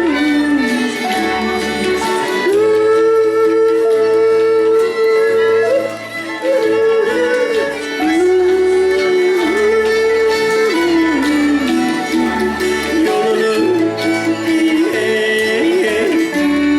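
Live acoustic bluegrass band music: a lead melody sliding and swooping between held notes, over a bass line of steady low notes that change about once a second.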